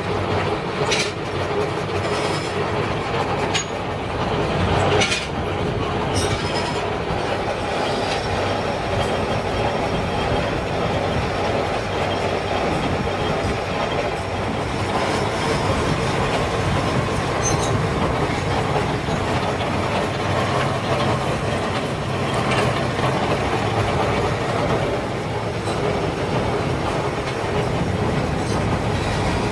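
Gear-cutting machine, likely a gear hobber, cutting teeth into a stack of steel motorcycle sprocket blanks: a steady, loud mechanical running and grinding of the cut. A few sharp clicks come in the first few seconds.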